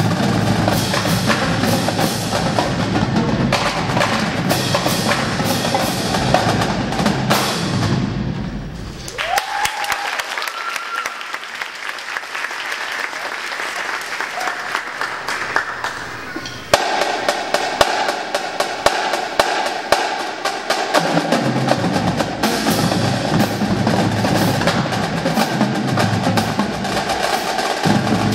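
A drumline of snare drums, tenor drums, five bass drums and hand cymbals plays a fast percussion piece. About nine seconds in, the bass drums drop out and the rest play more lightly. Near the middle, the line comes back in with a sudden loud hit, and the bass drums rejoin a few seconds later.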